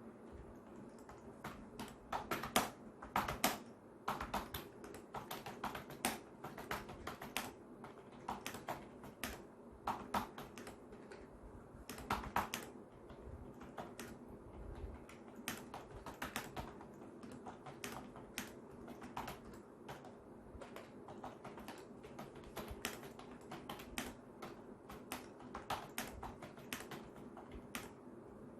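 Typing on an office membrane keyboard whose keys and stabilizer wires have been lubed: a steady run of soft, irregular keystroke clicks, some in quick clusters.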